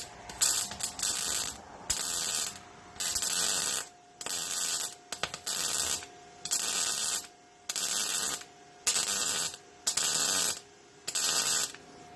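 MIG welder stitch-welding in short bursts: about ten crackling arc bursts, each under a second long, with brief pauses between them.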